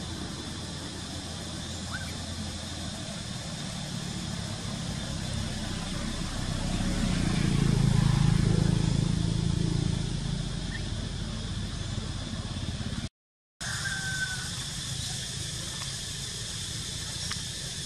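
A motor vehicle's engine passing by, growing louder to a peak about eight seconds in and then fading, over a steady outdoor background hum. The sound cuts out for half a second near the end.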